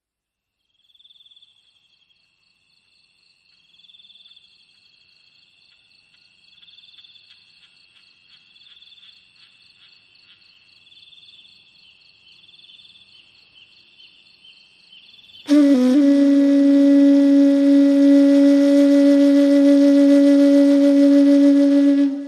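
Faint high chirring of insects that swells and fades in slow pulses. About two-thirds of the way in, a Balinese bamboo flute (suling) comes in loudly on one long, breathy held note.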